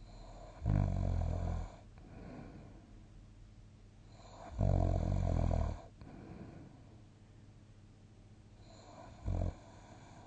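A sleeping person snoring: two loud snores about a second long each, roughly four seconds apart, each followed by a softer breath, then a brief short snore near the end.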